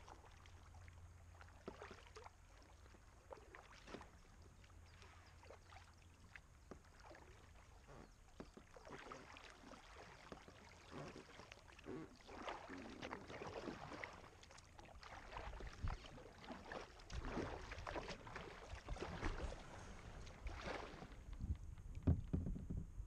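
Kayak paddle blades dipping and splashing in river water, in an irregular run of strokes that grows louder and busier after the first third.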